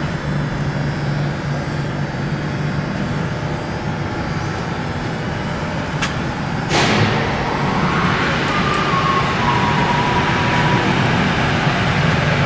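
P&H WP12 welding positioner's electric drive running with a steady low hum. About seven seconds in a sudden loud burst of noise breaks in, and the running sound stays louder after it.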